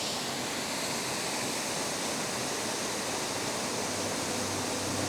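Waterfall rushing steadily, running high and "absolutely pumping" after heavy rain. Faint background music comes in near the end.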